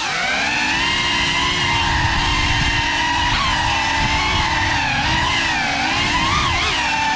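FPV drone's electric motors and propellers whining as it flies, heard from its onboard camera, the pitch wavering up and down with throttle over a rough low rumble.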